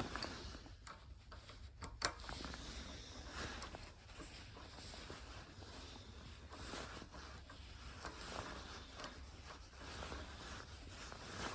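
Faint clicks and scrapes of a socket wrench being fitted to and turned on a steel bolt, with one sharp click about two seconds in.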